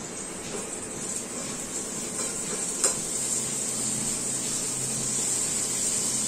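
Cooking oil heating in a pan on a gas stove, sizzling and crackling as water left in the pan spatters in the hot oil; the hiss grows steadily louder. One sharp click about three seconds in.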